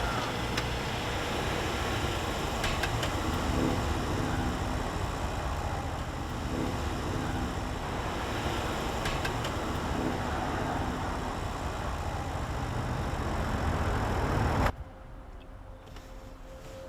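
Steady road and engine noise of a car driving, which cuts off abruptly near the end.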